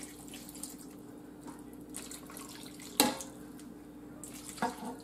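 Water poured in a thin stream from a glass measuring cup into a pan of pork steaks and vegetables, trickling and splashing faintly. A sharp knock about three seconds in.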